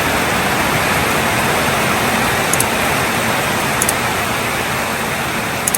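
Steady loud rushing noise with a few faint, brief high ticks.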